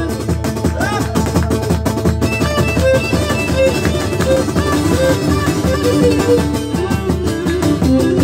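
Live acoustic instrumental passage of a Greek song: a guitar strums a steady rhythm under a melody line played on a second string instrument, with no singing.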